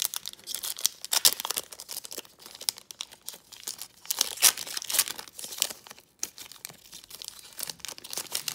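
Plastic hockey-card pack wrapper being torn open by hand and crinkled: a run of crackling rips and rustles, loudest about a second in and again around four and a half seconds in.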